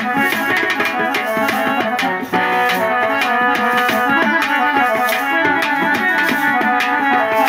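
Live folk dance music for a chekka bhajana: an electronic keyboard plays a sustained melody over a steady beat of drums and rattling percussion.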